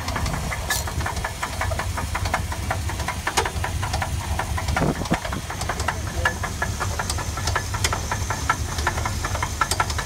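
1998 Chevrolet Silverado C1500 engine running with a rapid, steady knocking: rod knock, which the owner puts down to a bad rod bearing.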